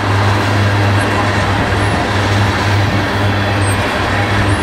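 Freight train of tank cars rolling past on steel rails: a steady, loud rumble of wheels on track.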